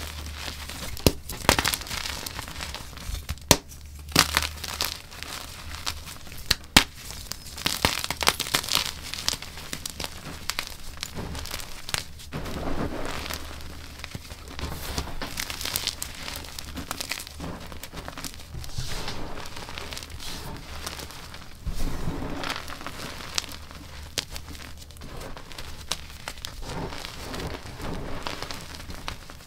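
Blocks of dyed gym chalk crushed and crumbled in the hands: a crumbly crunching with frequent sharp snaps, the cracks most frequent in the first several seconds.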